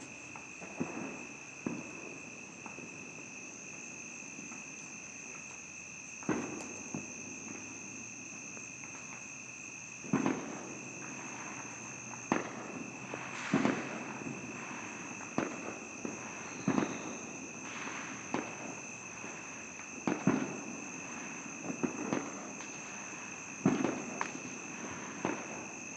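Fireworks and firecrackers going off all around, about fifteen scattered bangs and pops at irregular intervals of a second to a few seconds. Under them runs a steady high trill of night insects.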